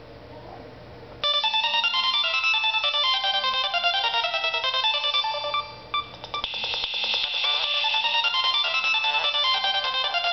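Nokia 3220 mobile phone playing one of its built-in polyphonic ringtones. After a brief pause, a fast synthesized melody of quick short notes starts about a second in and turns denser and brighter about six seconds in.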